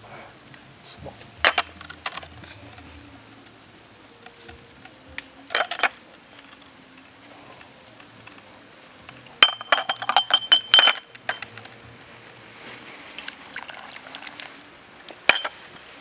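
Small ceramic cups clinking sharply as they are picked up from a tray and emptied into a steel wok: single clinks about a second and a half in and again near six seconds, a quick run of ringing clinks around ten seconds, and one more near the end.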